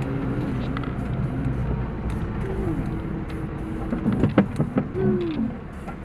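Off-road vehicle's engine running, heard from inside the cabin while driving a sandy rutted track, its pitch rising and falling with the throttle. A few sharp knocks about four seconds in.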